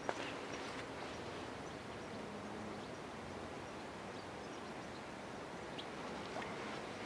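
Steady outdoor background hiss with a sharp click just after the start and a few faint short bird chirps, one near the start and one about six seconds in.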